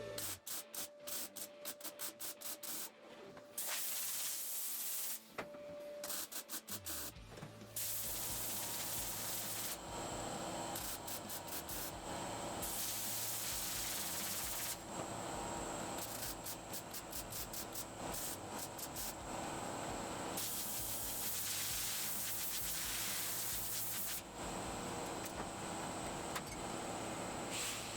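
An abrasive power tool working the sheet-steel body of a classic Mini in repeated passes, with a steady hiss and motor hum that swell and ease. It opens with a run of rapid clicks and short bursts before settling into continuous running.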